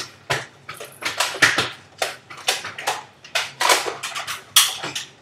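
A rapid, irregular series of sharp knocks and clatters, two to four a second.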